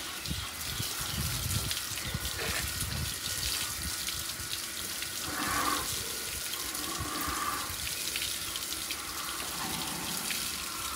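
Water jetting from a garden hose and splashing onto a cow's hind leg and the wet concrete floor: a steady spray washing the leg.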